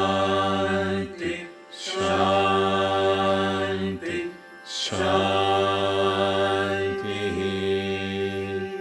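A group chanting a Vedic mantra in unison, played from a TV broadcast. Long syllables are held on one steady pitch, each about three seconds long, with short breaks between them.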